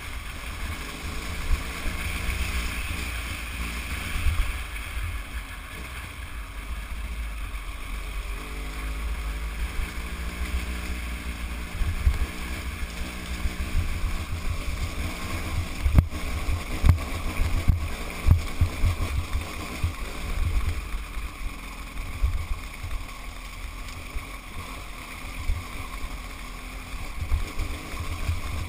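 Wind buffeting the microphone over a motorcycle engine running steadily on an off-road ride, with repeated jolts and knocks from the rocky gravel track, thickest in the middle of the stretch.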